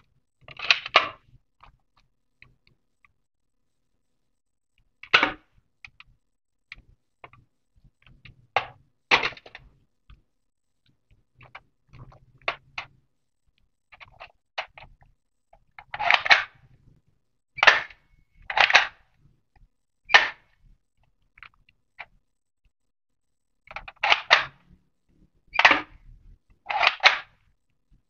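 Plastic toy guns being handled and worked: about a dozen sharp plastic clacks and snaps at uneven intervals, bunched more closely in the second half.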